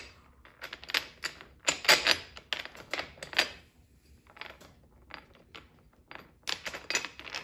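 Metal awning bracket being fitted over bolts in an aluminium awning track: a run of irregular metal clicks and taps, quieter in the middle and louder again near the end.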